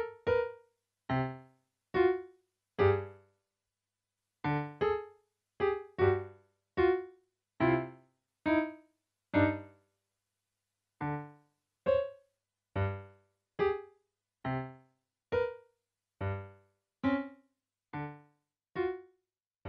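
Keyboard music with a piano sound: a tune of separate short chords with bass notes, each dying away quickly, about one or two a second, with two brief pauses.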